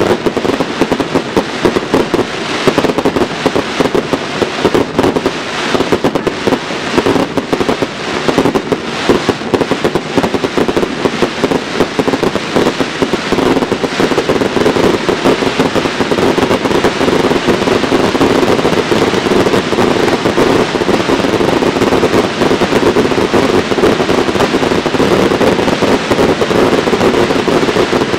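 Fireworks display: aerial shells and sparking fountains going off in a dense, continuous barrage of bangs and crackling, getting a little heavier in the second half.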